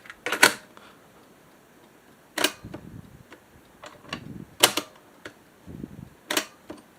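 Sharp plastic clicks and clunks of a cassette being taken out and loaded into a Sanyo STD-1410 cassette deck's tape compartment, with fainter handling rattles between them. There are four loud clicks, spaced about two seconds apart.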